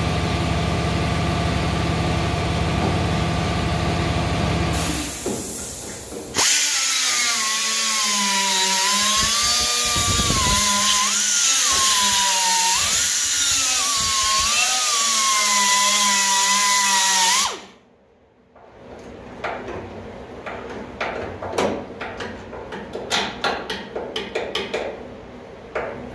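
A small air-powered cutoff wheel cutting through rusted sheet-steel quarter panel: a loud high whine for about eleven seconds, its pitch dipping and wavering as the wheel bites into the metal, then stopping suddenly. Before it there is a steady low hum, and after it a run of light metallic clicks and taps.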